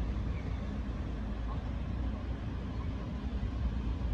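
Steady low outdoor rumble with a faint hum in it.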